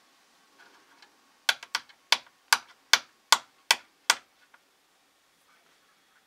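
A fly-tying hair stacker tapped sharply against the bench top about eight times in a steady rhythm, knocking the hair down so its tips line up.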